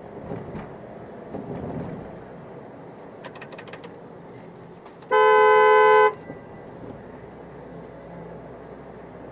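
A car horn sounds once, loud and steady for about a second, two notes together, about five seconds in, over steady road noise heard from inside a moving car. A brief run of quick clicks comes a couple of seconds earlier.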